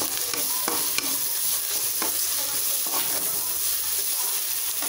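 Ginger-garlic paste and onions frying in hot oil in a kadai, sizzling steadily as they are stirred, with several sharp clinks of the stirrer against the pan.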